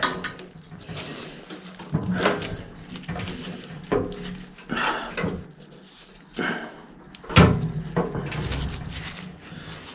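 Irregular knocks and clunks from a snowblower's metal drive parts as a new drive belt is forced onto a pulley by hand, the loudest thump about seven seconds in.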